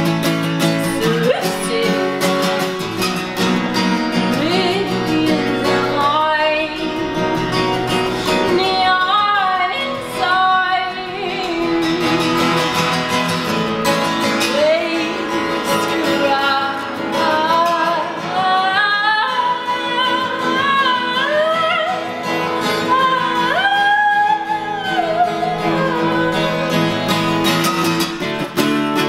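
A woman singing while strumming an acoustic guitar, her voice in long, sliding phrases over steady strummed chords.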